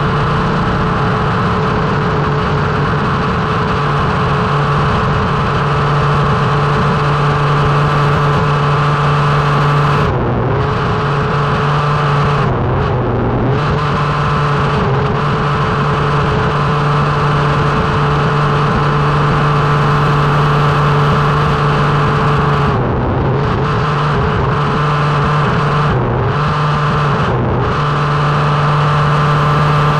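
Small two-stroke engine of a 1/5-scale Baja-type RC buggy running at high revs on a held throttle, with road and wind rush. The note drops briefly about five times as the throttle is eased and then picks up again.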